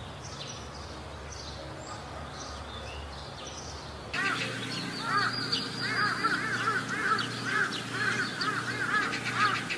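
Birds calling: faint high chirps over a steady background hiss, then, after a sudden change about four seconds in, louder arching calls repeated several times a second.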